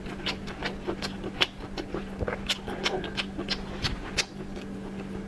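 Close-up eating sounds from a lobster being eaten: irregular wet clicks and smacks, several a second, over a steady low hum.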